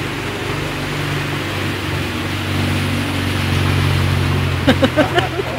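A motor vehicle engine running steadily, a low drone over a steady hiss, which stops about five seconds in as a voice starts.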